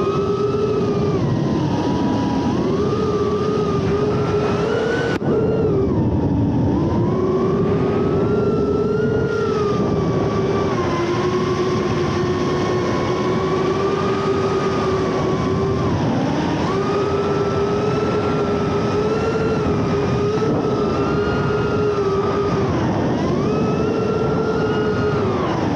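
FPV drone's electric motors and propellers whining, the pitch holding steady and then dipping and rising again several times as the throttle eases off and comes back. There is a sudden click about five seconds in.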